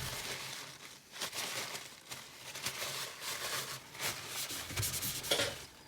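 Irregular rubbing and scratching with small clicks: hands handling small objects close to the microphone.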